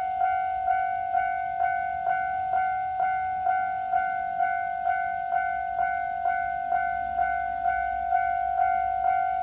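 Japanese railway level-crossing alarm ringing: an electronic bell strikes about twice a second over a steady ringing tone, warning that a train is approaching and the crossing is closed.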